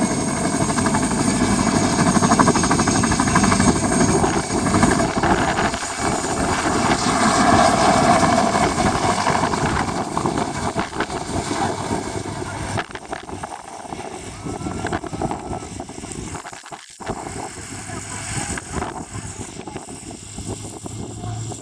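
Mi-2 helicopter's twin turboshaft engines and main rotor at take-off power as it lifts off and pulls away, with a steady high turbine whine; the sound fades after about twelve seconds as it departs.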